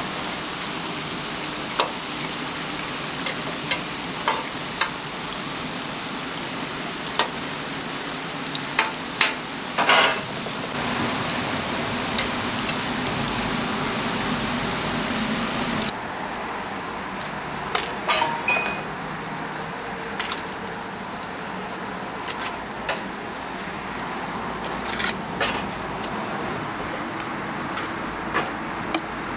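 Churros deep-frying in hot oil: a steady sizzling hiss, with scattered clicks and knocks. About halfway through the sizzle turns duller.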